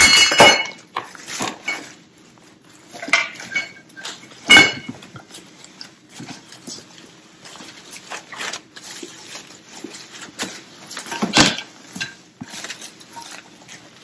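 Artificial fall leaf garlands rustling as they are pulled out of a clear plastic storage bin, with sharp clatters and knocks of things against the plastic. The loudest knocks come right at the start, about four and a half seconds in, and about eleven seconds in.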